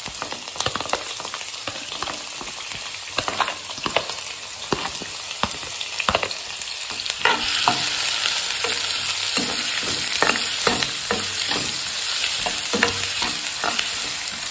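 Chopped onions sizzling in hot oil in a frying pan while a metal spoon scrapes and stirs them, with many short clicks of the spoon against the pan. The sizzle gets louder about seven seconds in as the onions spread over the hot oil.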